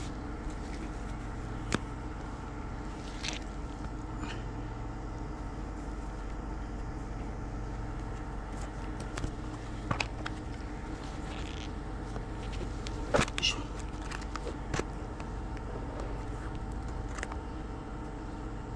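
Steady mechanical hum with several fixed tones, with scattered clicks and short rustles of fabric as a sock or compression sleeve is pulled onto a foot close to the microphone.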